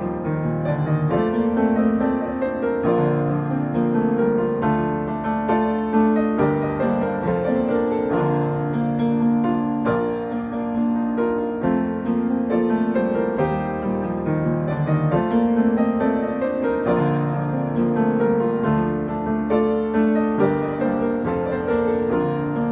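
Solo piano playing a chordal song arrangement: held chords in the middle register over a moving bass line, with new notes struck every fraction of a second.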